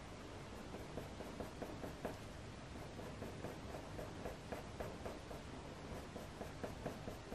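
Faber-Castell Polychromos coloured pencil scratching lightly across smooth hot-press watercolour paper in short back-and-forth strokes, several a second, laying in fur hair strokes.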